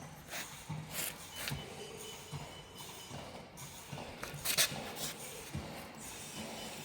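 Scattered clicks and knocks, the loudest about four and a half seconds in, from hands and tools working on a light aircraft's main wheel and tyre.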